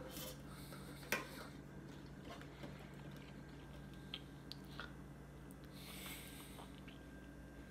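Faint indoor room sound with a steady low hum. A single sharp click comes about a second in, then a few light ticks and a brief rustle.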